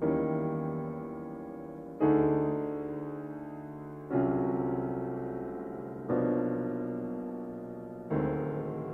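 Solo piano playing slow, sustained chords, one struck about every two seconds and left to ring and fade before the next.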